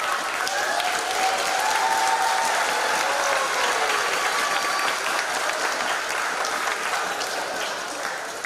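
Crowd applauding, with a few voices calling out over the clapping in the first few seconds; the applause slowly dies down toward the end.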